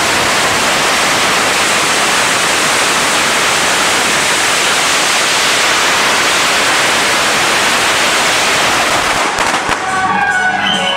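A long string of firecrackers going off in a dense, unbroken crackle. About nine and a half seconds in it gives way to music.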